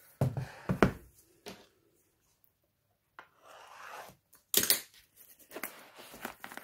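A shrink-wrapped cardboard box set down on a plastic cutting mat with a few sharp knocks. After a short pause, the plastic film rustles and crinkles as a hand slides and turns the box.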